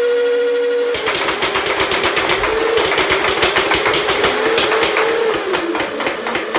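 Two Nerf Rival Nemesis blasters, one on the Rival battery pack and one on a 3S LiPo, firing full-auto together. The flywheel motors whine steadily, then about a second in the balls start going through in a rapid clatter, and the whine dips and wavers under the load.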